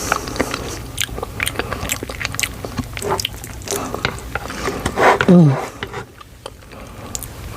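Close-miked chewing of a mouthful of cheesy ramen noodles, with quick wet mouth clicks and smacks. About five seconds in comes a loud, short vocal sound that falls in pitch.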